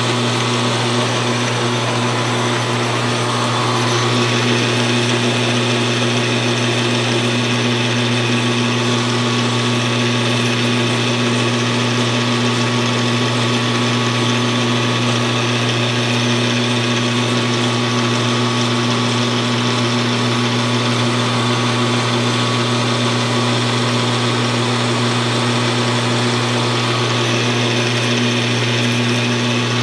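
Metal lathe running steadily with its chuck spinning, a constant low motor hum under the machine's mechanical noise.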